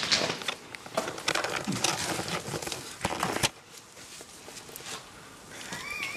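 Footsteps and scrambling over rock and loose grit: crunching steps and scraping, busy for the first few seconds and then quieter. A short wavering tone sounds near the end.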